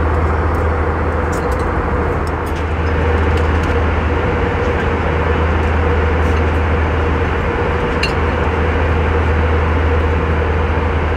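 Steady cabin noise inside an Airbus A321 airliner: a constant roar of engines and airflow with an even low hum and a steady drone running underneath.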